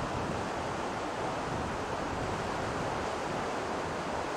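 Steady rush of sea surf mixed with wind on the microphone, with no distinct breaks or other events.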